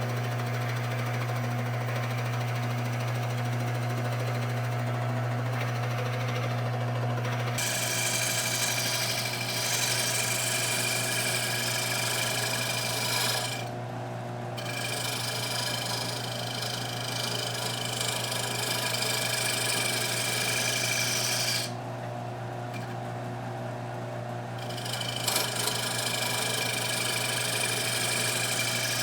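Small Rikon wood lathe running with a steady motor hum. About seven seconds in, a hissing scrape of the spinning wood being worked starts up. It stops briefly twice and then resumes.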